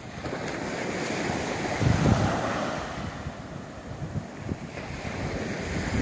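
Small Mediterranean waves breaking and washing up a sandy beach, swelling loudest about two seconds in and building again near the end, with wind buffeting the microphone.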